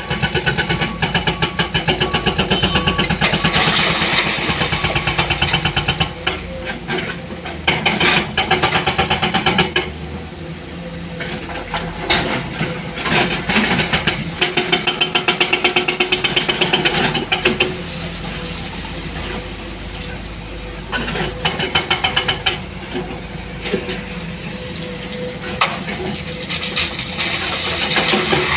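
Diesel engines of heavy earthmoving machinery running, with a fast, even rhythmic clatter that swells for stretches of several seconds and drops back between them.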